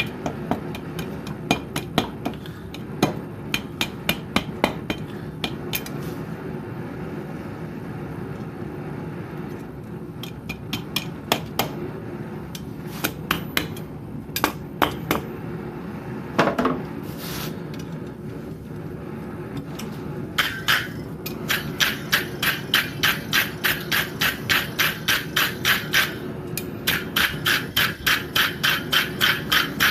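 Hand hammer striking steel on an anvil during forging: scattered blows at first, then, from about two-thirds of the way in, a steady run of ringing strikes about two to three a second, over a steady low hum.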